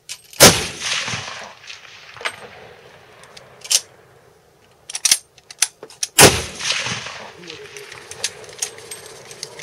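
Two loud rifle shots about six seconds apart, each ringing on for about a second under the covered firing line. Between them come a few sharp metallic clicks.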